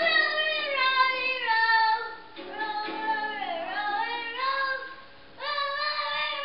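A young child singing in long held notes that slide up and down in pitch, breaking off briefly about five seconds in.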